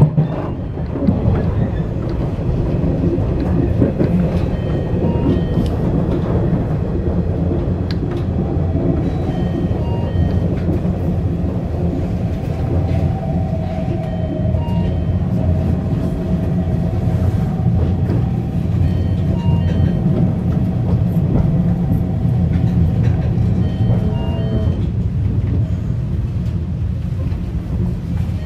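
Running noise of a 415 series electric multiple unit heard in the cab of its leading car: a steady rumble of wheels on rails, with a faint steady whine from about nine seconds in until a few seconds before the end.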